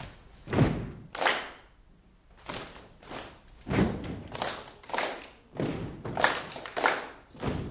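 A group of people doing a slow stomp-and-clap body-percussion pattern together: heavy foot stomps on the floor, each followed by a few hand claps, about one beat every half second to a second.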